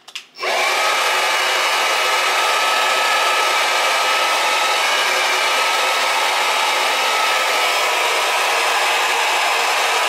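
GHD hair dryer switching on with a couple of clicks about half a second in, then blowing steadily: a loud even hiss of air with a faint high whine running through it.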